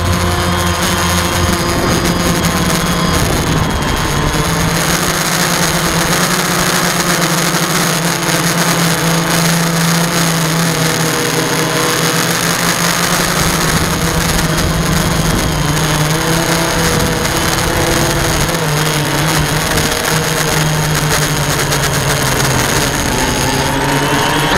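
DJI quadcopter's electric motors and propellers buzzing loudly, heard through a small keychain camera mounted on the drone itself: a steady hum whose pitch drifts up and down as the drone manoeuvres, over a constant hiss of rushing air.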